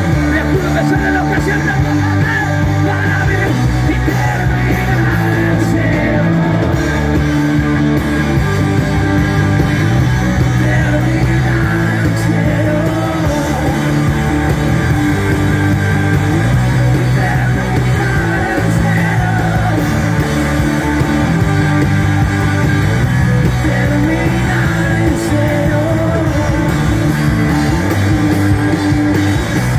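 Rock band playing live: electric guitars, bass guitar and drum kit, with singing over them.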